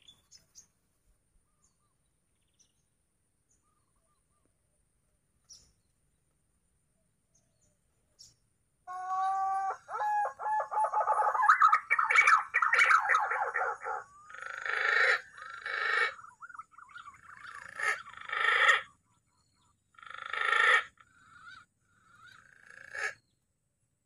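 Green pigeon (punai) calls, starting about nine seconds in: one long wavering run of calls, then four shorter calls with gaps between them.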